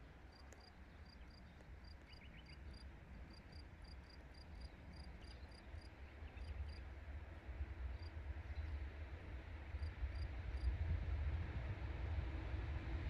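Low rumble of an approaching train growing steadily louder, with a faint hum coming in near the end. Over it a cricket gives short high chirps a few times a second, which thin out in the second half.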